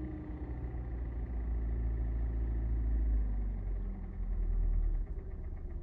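Warm Kia Sportage G4NA 2.0-litre inline-four engine idling as its revs settle back down after a throttle blip, with a slight dip about five seconds in. The engine has a knock that the owner takes for valve noise rather than a cylinder knock.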